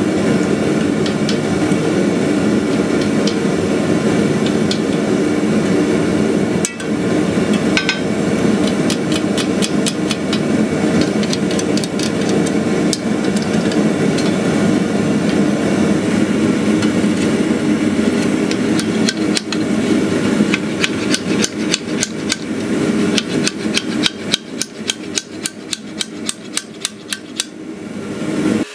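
Hand hammer striking a red-hot Damascus steel habaki on a steel anvil, about three blows a second, forge welding the habaki shut. A steady rushing noise from the forge runs underneath.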